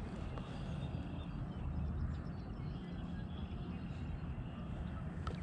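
Faint scattered bird chirps over a steady low rumble of outdoor ambience.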